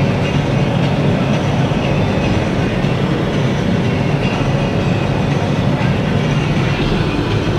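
Steady drone of a car in motion heard from inside the cabin: engine and tyre noise with a strong low hum, unbroken throughout.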